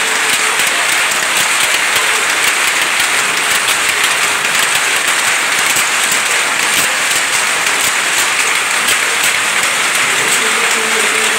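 Several power looms running together, a loud, steady, dense clatter of fast overlapping strokes as they weave cotton cloth.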